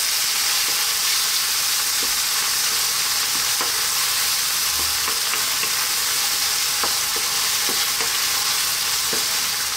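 Chopped onion, tuna and olives frying in olive oil in a non-stick wok with a steady sizzle, while a wooden spoon stirs and scrapes through them. Occasional light clicks of the spoon against the pan.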